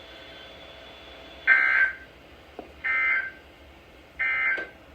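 NOAA Weather Radio's EAS end-of-message code: three short, buzzy bursts of two-tone digital data about a second and a half apart, marking the end of the flash flood warning, over a steady radio hiss.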